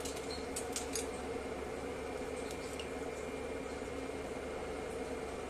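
Pot of water at a rolling boil with noodles cooking in it: a steady bubbling hiss over a low steady hum, with a few light clicks from about half a second to a second in.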